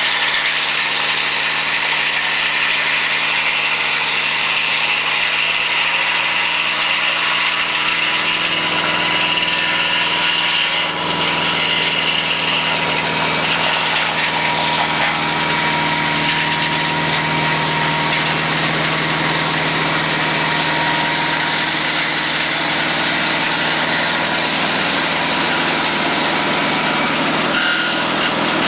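Mobile sawmill with a double edger running steadily while milling a knotty alder log, its engine and saw blades making a continuous mechanical din.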